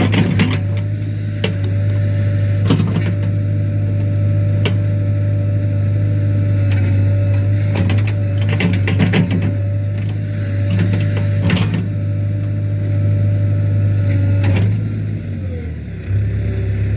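JCB 3DX backhoe loader's diesel engine running steadily under load, with scattered sharp knocks and clanks from the bucket work. About fifteen seconds in the engine note drops and then settles at a lower pitch.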